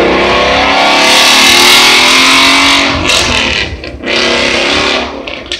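A loud motor vehicle passing close by on the street, its engine revving and shifting in pitch; the sound dips briefly about four seconds in and falls away at the end.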